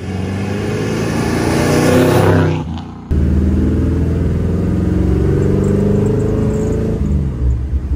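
1955 Chevy Bel Air's 383 V8 accelerating. It is first heard from the roadside as the car approaches and passes, loudest about two seconds in. After an abrupt cut it is heard from inside the cabin, its note climbing under acceleration and falling again near the end.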